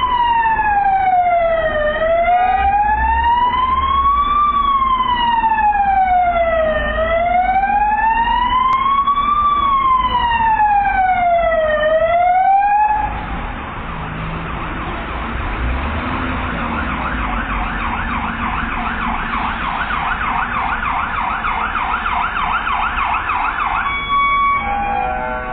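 Emergency-vehicle siren wailing, its pitch rising and falling slowly about once every five seconds. About halfway through it drops in level and changes to a fast yelp, which stops shortly before the end.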